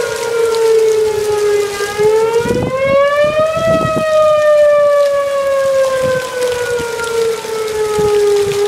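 Outdoor tornado warning siren wailing. Its pitch dips, rises between about two and four seconds in, then slides slowly back down.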